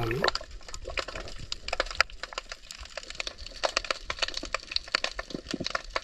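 Underwater ambience picked up by a submerged camera in a river: a dense scatter of irregular sharp clicks and crackles over a faint hiss.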